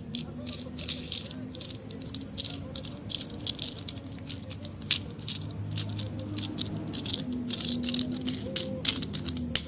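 Irregular clicks and rattles of a plastic glue-tab dent puller being handled and fitted over the glued tab, over a steady low hum.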